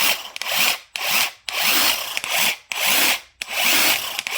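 Parkside PASSK 20-LI B2 brushed cordless impact wrench triggered over and over in short bursts, the motor spinning up and winding down each time, about six times.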